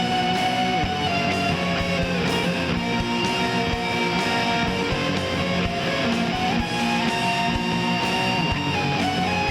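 Instrumental section of a home-recorded nu-metal song: electric guitars playing over a steady drum beat, with no vocals.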